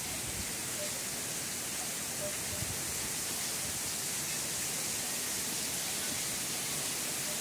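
Heavy thunderstorm rain falling in a steady, even hiss.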